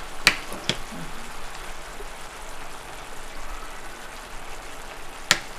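Thick sauce simmering and sizzling in a frying pan, a steady hiss, with two sharp clicks near the start and another near the end.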